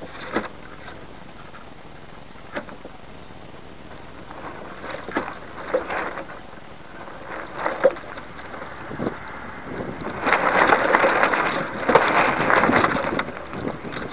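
Gusty wind buffeting the deck-mounted microphone of a Hurricane 1000 radio-controlled model yacht, with the sails and rigging giving short flaps and knocks. A stronger gust about ten seconds in brings a loud rush lasting about three seconds.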